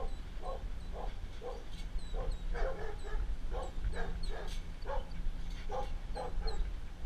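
A dog barking repeatedly in short, quick barks, about two a second, over a steady low hum.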